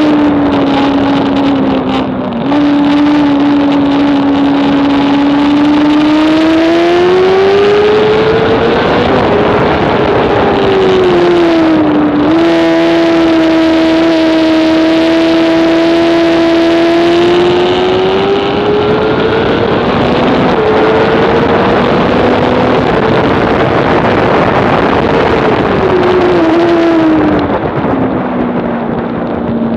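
Onboard sound of a 2007 Honda CBR600RR's inline-four engine at racing revs, with wind noise over it. The pitch climbs and falls with the throttle, jumps sharply at gear changes about two and twelve seconds in, and drops near the end.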